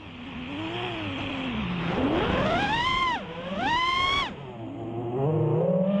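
Heard from the onboard camera, the FPV quadcopter's four Emax Eco 2207 1700 kV brushless motors on 6S whine as they spin Gemfan Hurricane 5146 props, and their pitch swoops with the throttle. The pitch dips just after the start, then climbs steeply to a high whine twice, about two and three and a half seconds in, cutting off sharply each time. A rush of prop wash runs through the middle.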